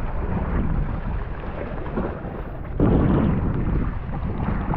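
Wind buffeting the camera's microphone in the rain, a rough rumbling that grows louder about three seconds in.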